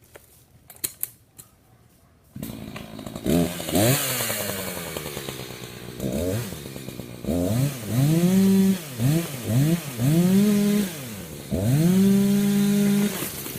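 Chainsaw engine coming in about two seconds in after a few faint clicks, then revved up and down several times and held at high revs near the end.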